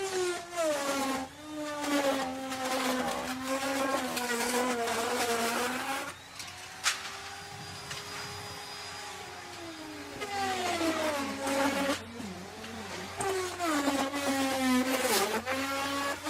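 Electric wood router cutting wood: a motor whine over the rasp of the bit. The pitch sags while the bit is cutting hard, rises and quietens for a few seconds in the middle as the load eases, then drops again under load. A sharp click comes about seven seconds in.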